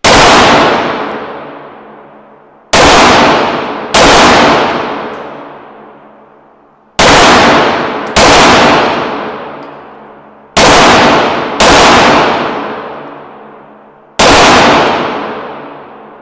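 Eight pistol shots from a 9mm Beretta 92FS, mostly in pairs about a second apart, each very loud and followed by a long ringing decay.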